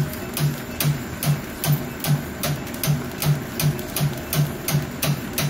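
Welly S-3 grain puffing machine running on brown rice, making an even pulsing beat of a low hum and a click about two and a half times a second.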